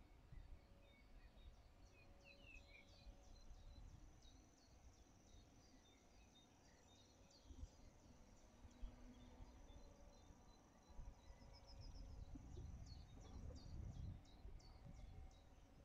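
Near silence with faint distant birdsong: many short, high chirps and twitters throughout. Underneath is a low rumble that gets a little stronger near the end.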